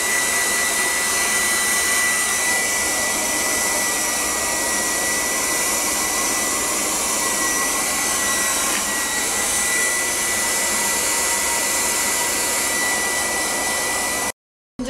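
Handheld hair dryer running steadily, blowing a wet small dog's coat dry: a constant rush of air with a thin high whine over it. It cuts off suddenly near the end.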